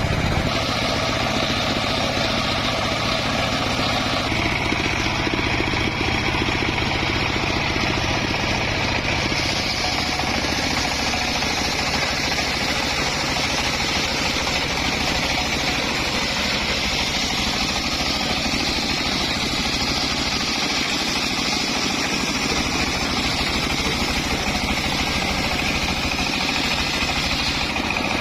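Homemade engine-driven circular saw running continuously as it cuts wood, a steady engine drone under a higher blade sound that shifts in strength a few times as the load changes.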